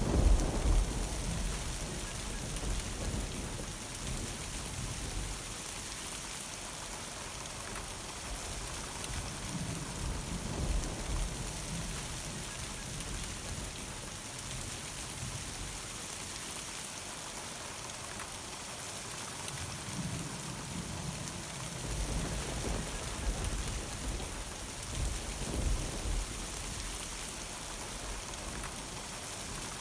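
Steady rain pattering down during a summer thunderstorm, with thunder rolling in low rumbles at the start, again about a third of the way in, and several times through the last third.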